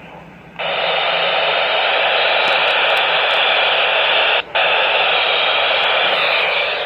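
Radio static: a loud, steady hiss from a radio receiver's speaker cuts in suddenly about half a second in, drops out for an instant about two-thirds of the way through, then carries on.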